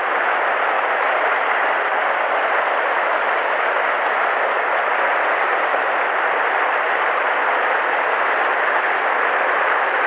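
Mountain stream rushing over rocks in a small cascade, a steady, even rush of whitewater right by the microphone.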